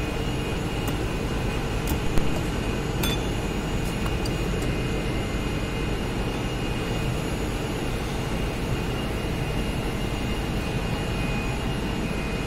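Steady machine running noise with a faint high whine, and a couple of light metal clicks about two and three seconds in as reducer parts are fitted into the housing by hand.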